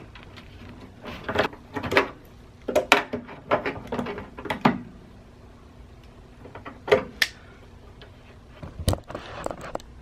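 Tongue-and-groove pliers clicking, knocking and scraping against a plastic water heater drain valve as the valve is screwed into the tank. A quick run of short knocks comes over the first few seconds, a couple more follow in the middle, and there is a heavier thump near the end.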